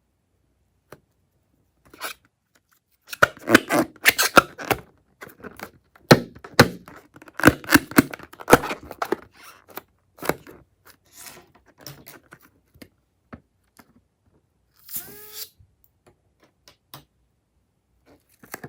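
Close-up handling of slime and balloon materials: a run of sharp clicks, crackles and scraping, loudest in two stretches during the first half, then sparser taps, with a brief squeak about three quarters of the way through.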